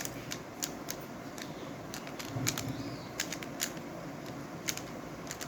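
MoYu WRM V10 ball-core Rubik's cube being turned by hand while scrambling: irregular, scattered sharp plastic clicks as its layers snap round.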